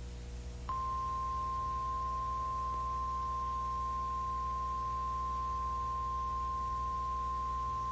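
NOAA Weather Radio 1050 Hz warning alarm tone: a single steady, unwavering tone that starts just under a second in and holds at constant level, over a low receiver hum. It signals that a watch or warning message is about to be broadcast.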